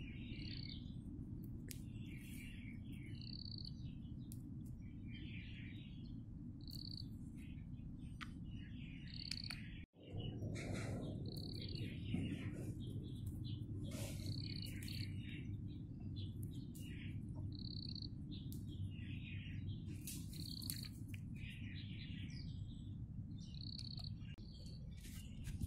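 Birds calling: a short high note repeated irregularly every one to three seconds, mixed with twittering chirps, over a steady low background rumble. The sound cuts out for an instant about ten seconds in.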